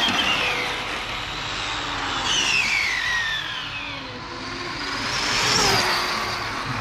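Arrma brushless electric RC car at speed-run pace, its motor and drivetrain giving a high whine that falls in pitch as it goes by, with tyre and road rush underneath. It swells and passes three times, loudest near the end.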